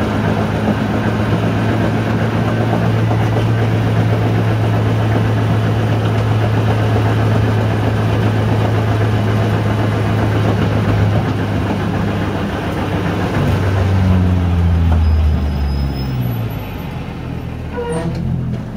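SEAT Leon Supercopa race car's engine heard from inside the cockpit, running with a steady drone while the car rolls slowly down the pit lane. About twelve seconds in, its note falls in steps as the car slows, and it is a little quieter near the end.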